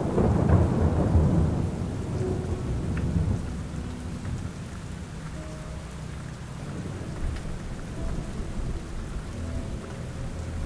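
Steady rain with a low rolling thunder rumble that swells over the first few seconds and then fades away.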